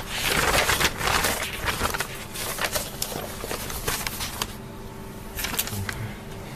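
Papers rustling and being handled, with scattered crackles and clicks; loudest and busiest in the first two seconds, then lighter.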